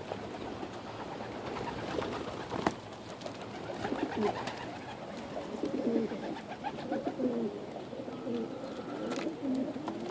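Several domestic pigeons cooing, low overlapping coos that grow denser from about four seconds in. A single sharp knock sounds about three seconds in.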